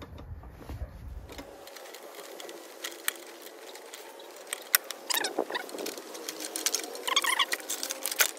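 Tongue-and-groove pliers clicking and scraping on the rusted hose fitting of a pressure washer pump as it is worked loose to get the hose off, with two short squeaks as the metal turns.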